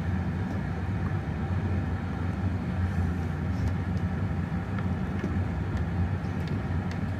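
Gas-fired glory hole burner running with a steady low roar while a glass piece on the iron is reheated in its mouth.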